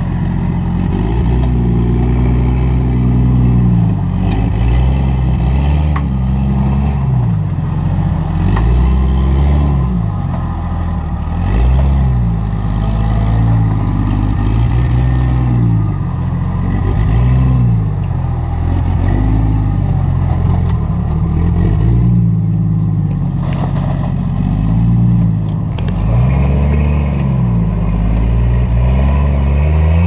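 Supercharged engine of a Jeep Cherokee XJ rock crawler under load, revving up and falling back again and again as the driver works the throttle over boulders.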